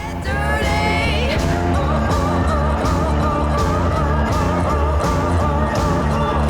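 Background rock song with a sung vocal and a steady beat.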